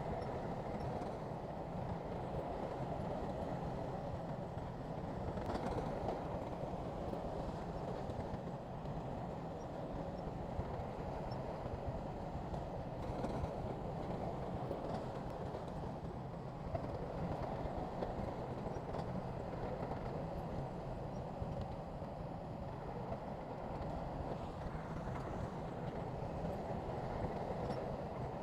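Heavy diesel earthmoving machinery running steadily, a continuous rumble without a break or change.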